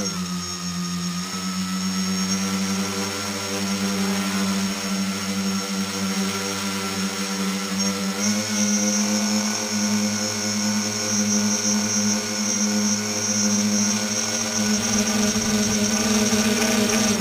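Tricopter's three electric motors and propellers droning steadily in flight, heard from the camera on board. The pitch shifts slightly about eight seconds in.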